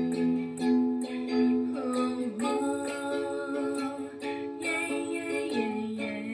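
Ukulele strummed in a steady rhythm of down and up strokes, the chord changing about two and a half seconds in and again near the end.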